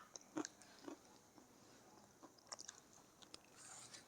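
Faint biting and chewing of a piece of pink Nakumat edible clay. It gives a crisp crunch at the start and a few more in the first second, then a quick run of small crunches about two and a half seconds in.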